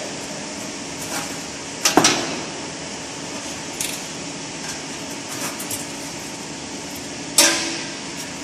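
Metal clanks and scrapes as a perforated steel sieve screen is pried loose with a metal bar and lifted off a round stainless-steel sieve frame: a sharp double knock about two seconds in, lighter clicks after, and the loudest clank near the end.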